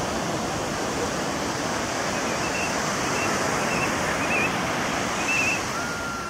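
Sea surf breaking and washing through the shallows: a steady rush of waves.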